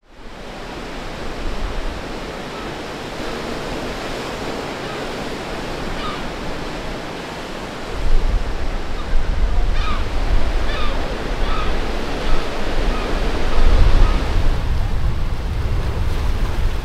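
Ocean surf washing against a rocky shore, a steady hiss of breaking water. About eight seconds in, a heavy low rumble of wind on the microphone joins it, and a few short seagull cries come through.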